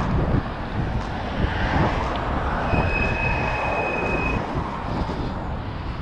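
Wind rushing over the microphone and road rumble from an Eahora XC100 e-bike riding along the road while slowing down. A steady high whine sounds for about a second and a half in the middle.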